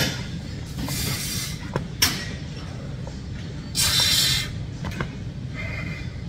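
Two forceful hissing exhalations, about a second in and again near four seconds, from a lifter straining through reps of a heavy seated dumbbell shoulder press. Sharp clicks come in between, the loudest about two seconds in.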